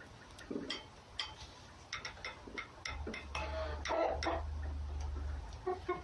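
A red fox and a cat playing at close quarters: a string of irregular soft clicks and taps, with a short squeaky whine about halfway through and a brief one near the end. A low rumble sets in about halfway.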